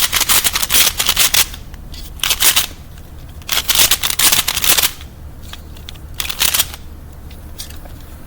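Plastic pyraminx puzzle being twisted very fast, its layers clicking in rapid rattling bursts four times over the first seven seconds, then only faint ticks.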